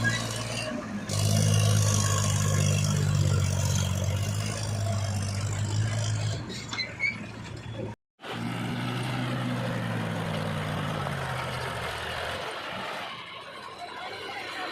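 Diesel engine of heavy machinery running steadily, with a low hum. The sound drops out completely for a moment about eight seconds in, then the engine comes back and runs a little softer near the end.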